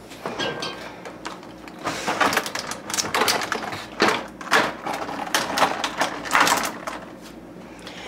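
Refrigerator being opened and loaded by hand: a run of irregular knocks, clicks and rustles as the door is handled and things are moved about on the shelves, thinning out near the end.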